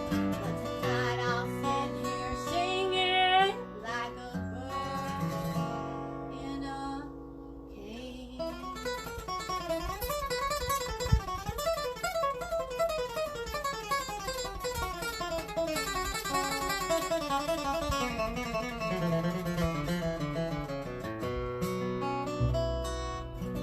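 Acoustic guitar flatpicked: a few ringing chords, then, after a short lull, a long run of fast single-note picking that winds downward, closing on strummed chords near the end.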